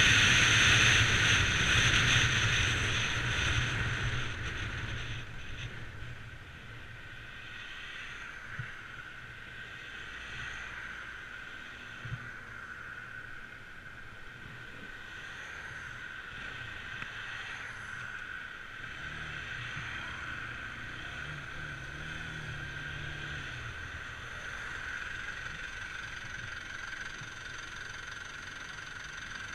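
Bajaj Pulsar 200 NS motorcycle riding with wind rushing and its single-cylinder engine running. The loud wind-and-engine sound dies away over the first six seconds as the bike slows, then settles to a lower, steady engine sound with a couple of small knocks.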